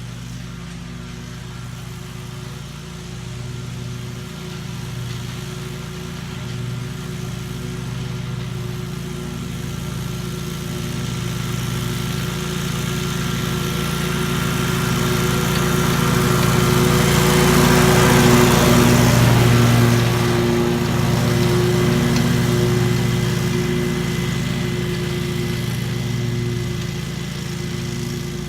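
Lawn mower engine running steadily at constant speed. It grows gradually louder to a peak about two-thirds of the way through, then fades a little, as the mower passes close by.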